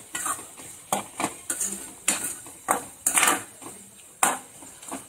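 Spatula scraping and knocking against a metal pan while stirring fried onions, in a series of irregular strokes.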